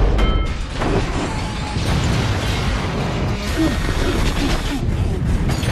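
Action-film fight soundtrack: score music under a dense wash of crashes, booms and rocket-thruster noise as the Hulkbuster armour and the Hulk smash through buildings.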